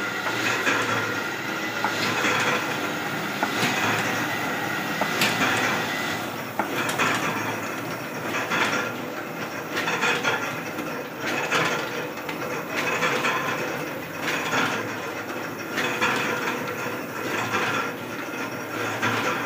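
Offset printing press running as it prints non-woven carry bags: a steady mechanical clatter with a louder stroke about every second and a half.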